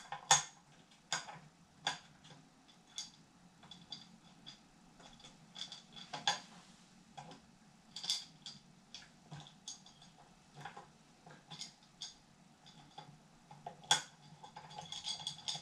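Metal and plastic parts of a camera cage clicking and knocking irregularly as they are handled and fitted together, with a couple of sharper knocks just after the start and near the end.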